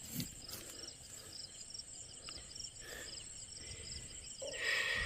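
Insects chirping in a steady series of short, evenly spaced high-pitched pulses against quiet outdoor background noise. A brief louder sound comes in near the end.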